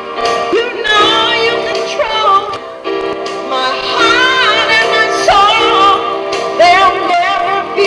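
Live band playing a slow ballad: a lead melody with wide vibrato over held chords.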